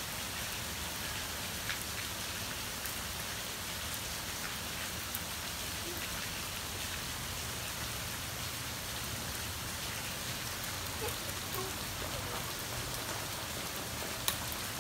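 Steady rain falling on a paved driveway and lawn: an even hiss with a few scattered drip ticks.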